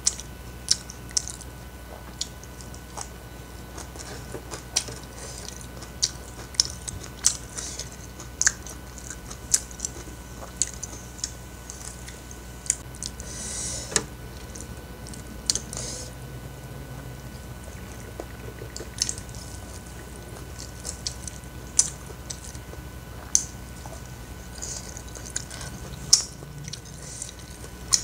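Close-miked eating sounds of a rice meal taken by hand: wet chewing, lip smacks and small crunches, with irregular sharp clicks about once a second and a longer crunchy patch about halfway through.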